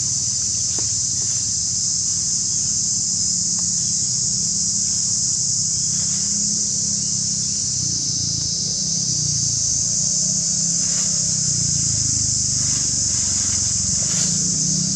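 Steady high-pitched chorus of insects, with a low steady rumble underneath and a few faint rustles of dry leaves.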